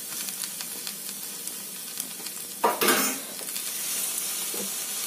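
Potato sticks and raw peeled shrimp frying in oil in a wok: a steady sizzle with small crackles throughout, and a brief louder burst about two and a half seconds in as more shrimp go into the pan.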